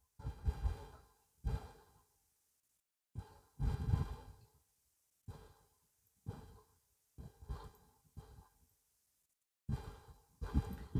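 A man's breaths and sighs, soft and intermittent, about eight short ones with quiet gaps between.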